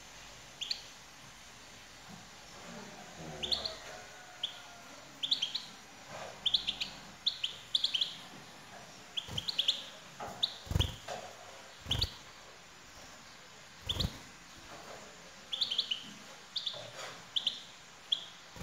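European goldfinch chirping in short twittering clusters of high calls. Three dull knocks, the loudest sounds, come a little past the middle.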